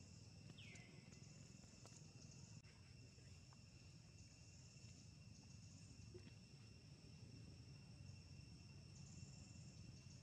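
Faint insect chorus: two steady high-pitched drones, with short bursts of higher chirping coming every second or so. A single short falling whistle sounds about half a second in.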